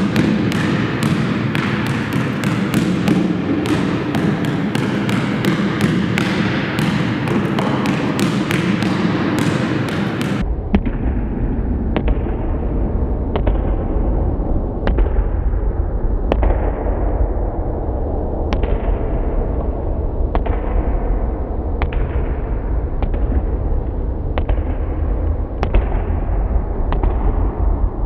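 Basketball bouncing on a gym floor: many quick dribbles for about the first ten seconds, then single bounces about every second and a half, each echoing in the hall, over a low steady hum.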